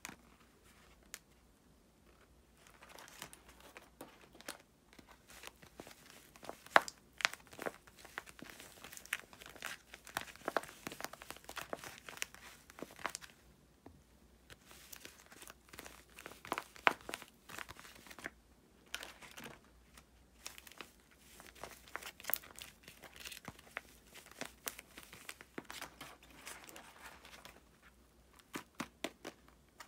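Handmade paper squishies, paper covered in clear tape and laminating film and stuffed with cotton, being squeezed and handled by hand, their plastic surfaces crinkling and crackling irregularly. The crinkling starts about three seconds in and stops briefly a few times.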